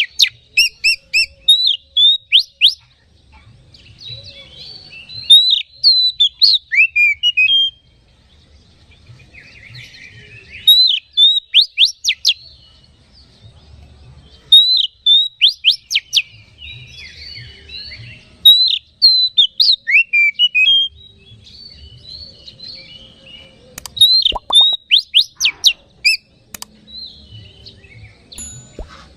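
Oriental magpie-robin in full loud song: bursts of rapid, sharp whistled notes sweeping up and down come every few seconds, with softer twittering and chattering between them.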